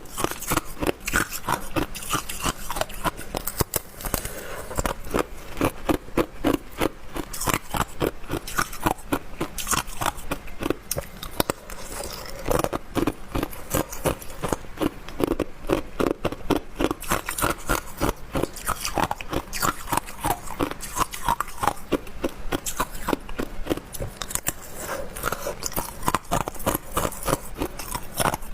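Hard ice being bitten and chewed close to the microphone: a steady run of sharp crunches and cracks, several a second.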